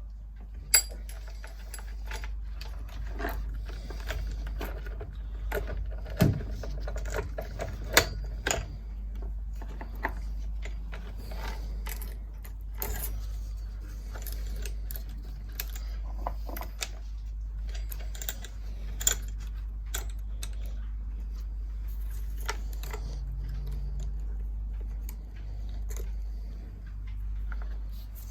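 Saw chain links clinking and rattling as a new chain is worked onto a chainsaw's bar and drive sprocket, with many scattered sharp metallic clicks and knocks over a steady low hum.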